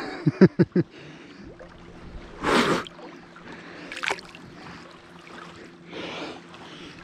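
A person bathing in cold river water: a few quick gasping sounds at the start, then breathy puffs and small splashes, with water lapping right at the camera.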